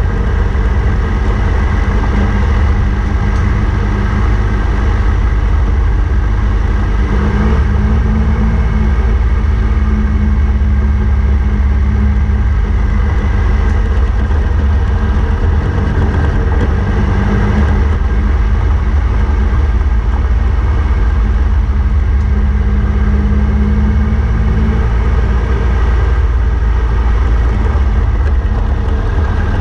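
Triumph Tiger 1200's inline-triple engine running steadily at low road speed, its note shifting only slightly, under a heavy, deep wind rumble on the microphone.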